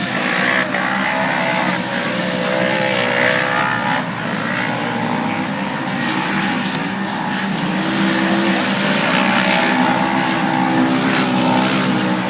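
Off-road race vehicle's engine running hard at racing speed, its pitch rising and falling with the throttle.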